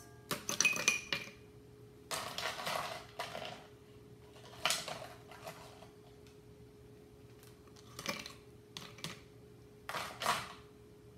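Ice cubes dropped into a glass, clinking and rattling in short bursts every second or two.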